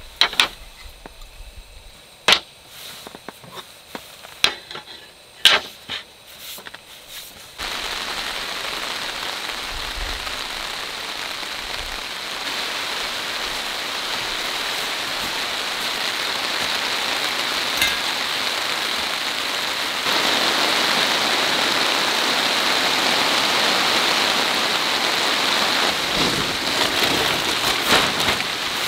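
A few light wooden knocks and clicks as a slatted wooden camp table and gear are handled. About a quarter of the way in, steady rain begins, a dense, even hiss that runs on and grows a little louder about two-thirds of the way through.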